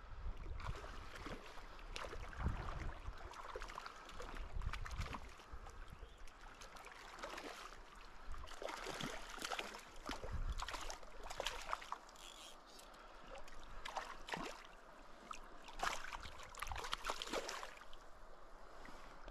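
Wading in a shallow river riffle: water sloshing and splashing around the legs in irregular bursts, over the steady run of the current.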